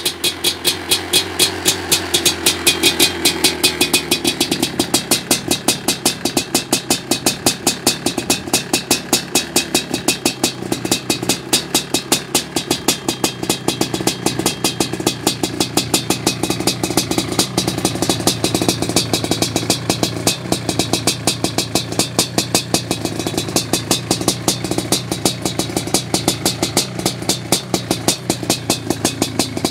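1987 Suzuki LT500R Quadzilla's 500 cc two-stroke single idling through an FMF Fatty expansion chamber and Powercore silencer, with sharp exhaust pulses about three times a second.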